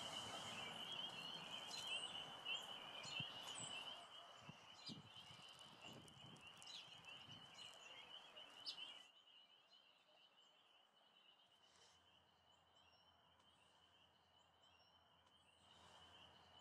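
Faint outdoor ambience: a steady, high, wavering trill, with a few light handling clicks in the first half and some faint short chirps later on.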